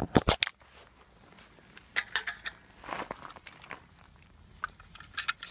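Handling noises: a quick run of sharp clicks and knocks at the start, then scattered light taps and rustles.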